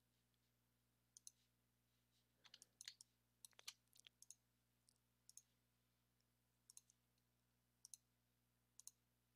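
Faint computer mouse clicks, scattered and often in quick pairs, over near silence.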